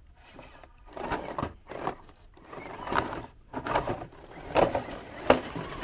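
Element RC Enduro Trailrunner 1/10 scale crawler tipping over onto its roof on rock, with irregular knocks and scrapes of body and tires against stone, a sharp knock about five seconds in, and its small electric motor whirring in short bursts.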